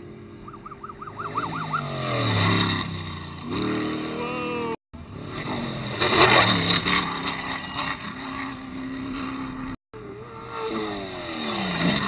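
Unlimited-class off-road race trucks running flat out over a jump, engine pitch sliding down and climbing again as they rev. The sound breaks off abruptly twice, and the loudest moment is a noisy surge about six seconds in.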